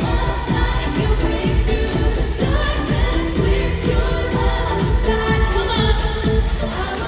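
Two female singers singing a pop song into microphones over a backing track with a steady bass beat, heard through a hall's sound system.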